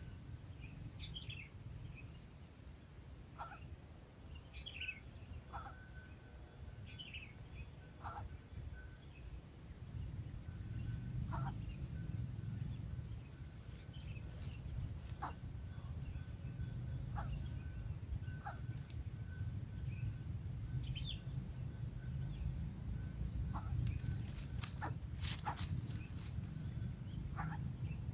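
Steady, high-pitched insect trill, like crickets, with a low wind rumble that grows louder about a third of the way in. Scattered short chirps and faint clicks and rustles sound over it, most thickly near the end.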